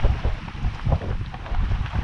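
Wind buffeting the microphone in gusts, a heavy low rumble, aboard a sailboat under sail, with a few short sharp sounds mixed in.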